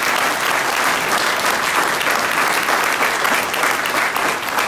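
Audience applauding loudly, a dense wash of many hands clapping without a break.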